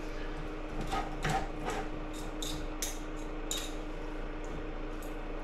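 Two forks scraping and clicking against a cutting board as cooked chicken breast is pulled apart into shreds, in irregular short strokes.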